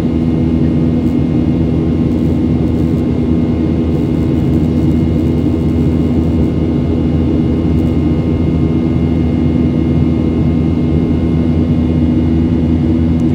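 Jet airliner's engines and airflow heard from inside the passenger cabin in flight: a loud, steady drone with a strong low hum and faint high whines above it.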